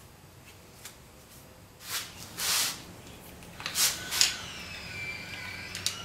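Short rustling and scraping bursts of hands working a wire harness and its connectors loose from a Honda B18C5 engine. About four seconds in, a wavering siren-like wail starts and runs on.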